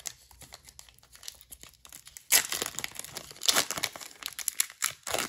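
Foil wrapper of a Panini Chronicles Draft Picks trading card pack crinkling and tearing as it is ripped open by hand. It comes in short crackly bursts, loudest a little over two seconds in.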